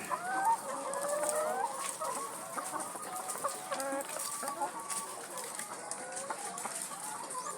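A flock of laying hens clucking, with many short calls overlapping one another.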